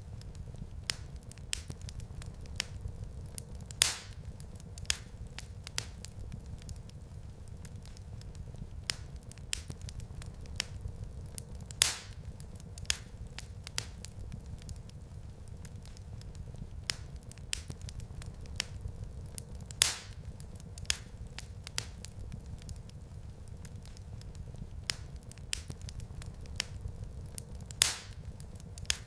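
Wood fire crackling in a fireplace: a steady low rumble of flames under frequent small snaps, with a louder pop about every eight seconds.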